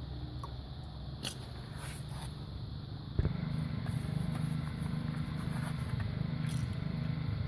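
A steady low engine rumble that gets louder after a sharp knock about three seconds in, with a few light clicks over it.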